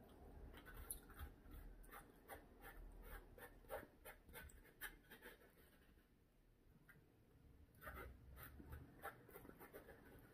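Faint, irregular clicks and crackles of someone eating, in a long cluster over the first half and a shorter one near the end.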